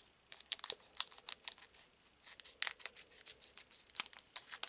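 Trading cards and pack packaging being handled: a quick, irregular run of light crinkles, rustles and clicks.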